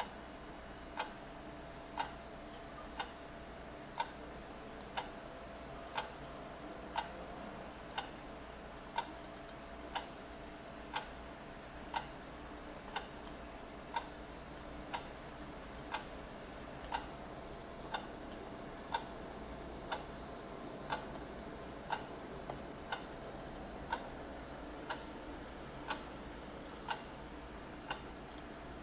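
A clock ticking steadily, one tick a second, over a faint steady hum.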